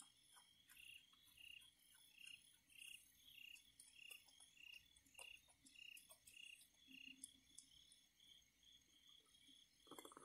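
Faint night insects calling: a steady high trill with a slower pulsing chirp about one and a half times a second. Faint scattered clicks throughout, and a brief louder noise near the end.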